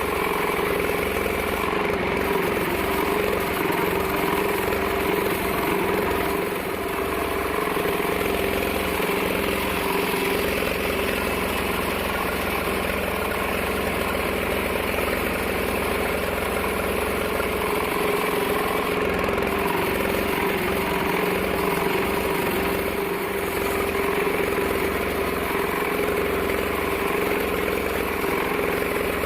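42-inch band sawmill running steadily: a constant engine-like drone with a steady mid-pitched tone.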